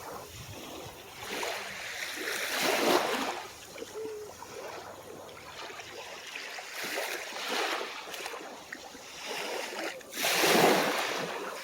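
Small, calm waves breaking and washing up the shore, rising and falling in surges: a bigger wash about three seconds in and another near the end.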